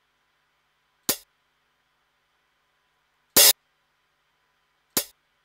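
Single electronic hi-hat samples from a custom 80s electro drum kit in the ESX24 sampler, each triggered alone as a note is entered: three separate sharp, bright hits a second or two apart, the middle one longer and the loudest.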